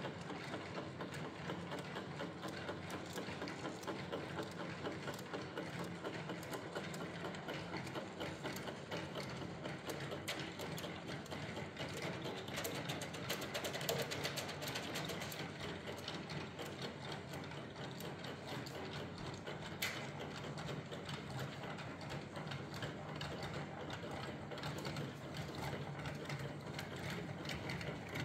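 Small electric motors and plastic gear trains of Faller model fairground rides running: a steady whir with rapid fine gear clicking and a low motor hum, a little louder around the middle.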